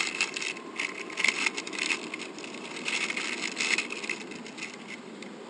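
Clear plastic bag crinkling and crackling as it is handled and opened; the crinkling dies away near the end.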